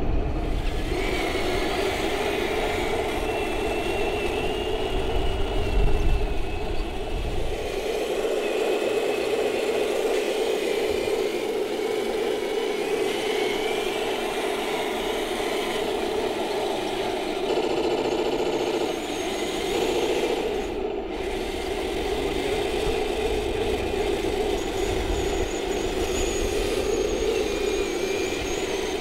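Radio-controlled scale model Panther tank driving across grass, its drive and running gear making a steady mechanical whir.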